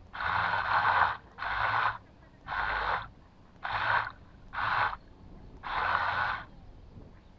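A person breathing heavily close to the microphone: six breaths, about one a second.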